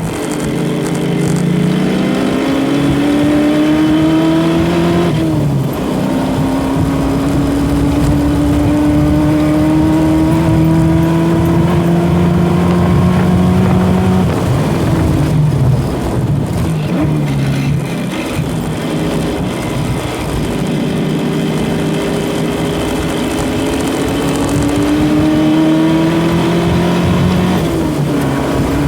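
Ford Mustang engine pulling hard through the gears on track, climbing steadily in pitch. It upshifts about five seconds in, lifts off and drops in pitch about halfway, then climbs again to another upshift near the end. The owner hears the transmission making unhappy noises at high rpm.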